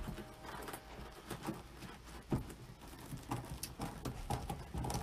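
Stiff deco mesh being folded and scrunched by hand, rustling and crinkling with many small irregular ticks and taps.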